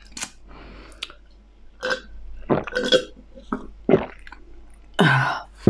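A person burping loudly about five seconds in, after a string of short mouth and eating noises.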